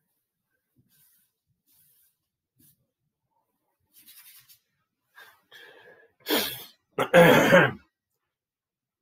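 A man sneezing: a few faint catching breaths, then a loud sneeze in two quick bursts near the end.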